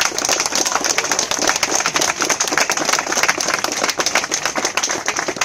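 Crowd applauding: many people clapping their hands together in a dense, loud patter.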